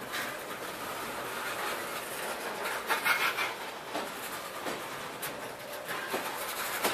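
Tank cars of a freight train rolling past close by: a steady rolling rattle of steel wheels on the rails, broken by irregular clacks, the sharpest about three seconds in.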